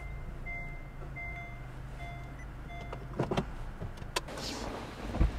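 A Honda car's reverse-gear warning beeper sounding inside the cabin, a short beep about every 0.7 s over the low hum of the car, four times before it stops as the car is shifted out of reverse. Then several sharp clicks and a low thump near the end.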